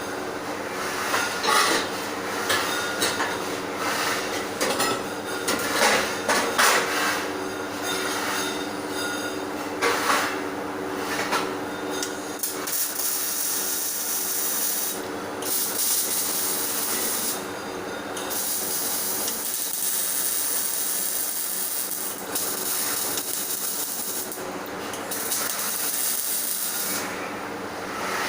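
MIG welding arc crackling and hissing in runs of a few seconds, with short breaks between beads, after a stretch of metal knocks and taps. A steady hum runs underneath.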